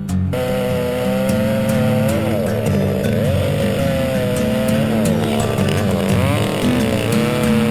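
Chainsaw running at high revs, its pitch dropping and recovering several times as it bogs down in a cut.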